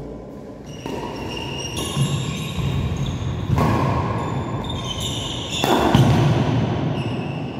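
Badminton rally: rackets hitting the shuttlecock, shoes squeaking and feet thudding on the court floor, echoing in a large hall. The two loudest hits come about three and a half seconds and six seconds in.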